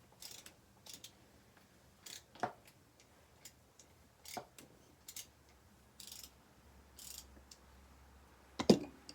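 Irregular metallic clicks and short scrapes of hand tools working the cam sprocket bolt loose on a Honda CRF100 engine, the bolt still a little tight. A louder knock comes near the end.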